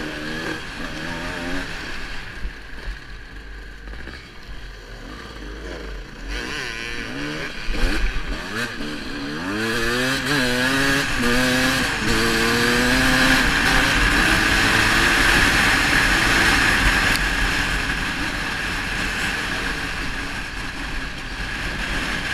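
Enduro dirt bike engine under way, revving up and dropping back in pitch several times through gear changes, then pulling steadily and louder from about halfway through.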